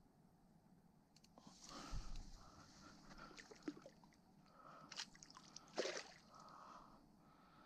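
Water splashing and sloshing at the river's edge as a hooked barbel is played in close to the bank, in several irregular bursts, the loudest about two seconds in and near six seconds, with a sharp knock about five seconds in.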